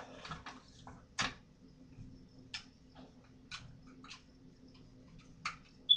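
A handful of short, irregular clicks or taps over a low steady hum, ending with a brief high-pitched tone.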